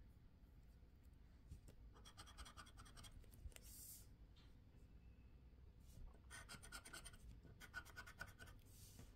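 A pink thread-wrapped scraper scratching the coating off a Mega Linie scratch card, faint, in two quick spells of rapid strokes, each ending in a short scrape.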